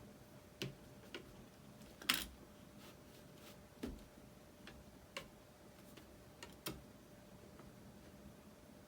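Light, irregular clicks and taps of small plastic parts and screws being handled and fitted on a hand-held RC transmitter, about nine in all, the loudest about two seconds in.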